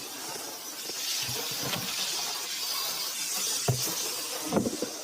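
Water spraying from a hose to rinse out a livestock stock tank: a steady splashing hiss, with a few dull knocks.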